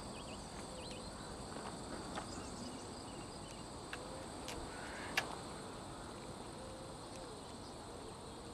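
Insects chirring steadily in summer vegetation, a high even drone, with a few faint ticks and one sharp click about five seconds in.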